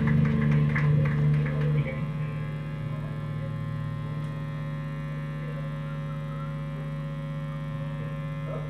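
A live rock band's last chord rings out through the guitar amplifiers and stops about two seconds in. After that only the steady electrical hum of the amps and PA is left.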